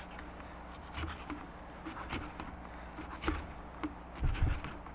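Kitchen knife chopping kimchi on a cutting board: a few irregular blade strikes and knocks against the board.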